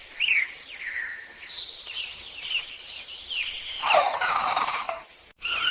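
A small cartoon bird chirping: a series of short chirps, with a louder, lower call about four seconds in.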